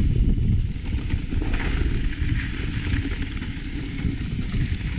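Mountain bike riding down a rocky dirt trail: a steady low rumble of tyres and rushing air, with scattered clicks and rattles from the bike and loose stones.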